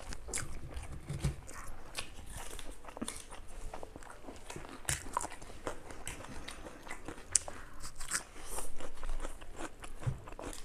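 Two people eating chow mein noodles with forks: slurping and chewing mouthfuls, with irregular clicks and scrapes of forks on plates. A sharp click about seven seconds in, then a louder slurp a second later.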